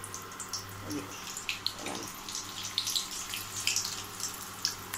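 Fish steaks coated in masala shallow-frying in hot oil in a steel pan: irregular crackling and spitting pops over a steady low hum.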